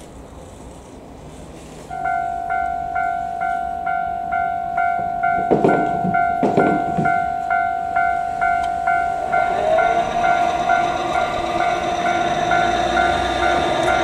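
Japanese level-crossing warning bell sounding: a steady electronic tone with a ding repeating about twice a second, starting about two seconds in. Two short loud sounds come about a second apart near the middle, and in the last third the noise of an approaching train builds up under the bell.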